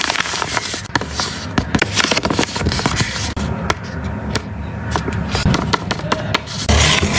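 Blind bag packaging crinkling and rustling as it is handled and opened, with many sharp, irregular crackles.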